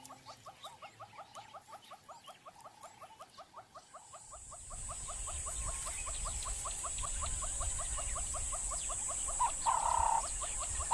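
Outdoor wildlife ambience: a fast, even pulse of short chirps, several a second, joined about four seconds in by a steady high hiss and a low rumble, with a louder call just before the end.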